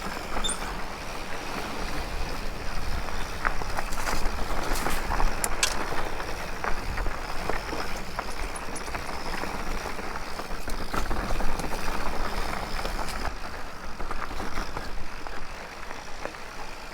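Mountain bike ridden over a rough dirt trail: steady tyre and rolling noise with frequent small knocks and rattles from the bike, and wind rumbling on the microphone.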